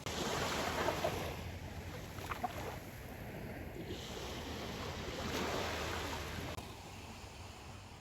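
Small waves washing onto the shore, swelling and fading twice, with wind on the microphone.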